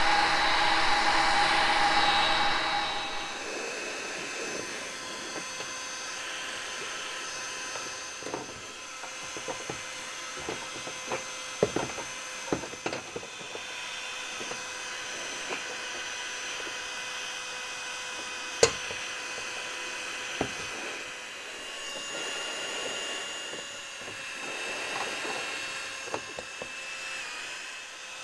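Heat gun blowing hot air onto a dented plastic car bumper to soften it for pushing back into shape. It runs loudly for about three seconds, then carries on more quietly with a steady whine. Scattered light knocks and clicks come and go throughout, with one sharp click about two-thirds of the way in.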